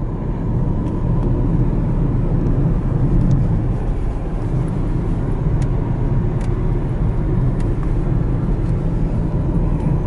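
Car driving along a road, its engine and tyre noise heard from inside the cabin as a steady low rumble.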